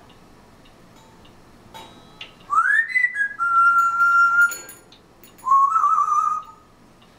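African grey parrot whistling: a rising whistle about two and a half seconds in, then a held steady note, and a shorter wavering whistle near the end, with a few sharp clicks between them.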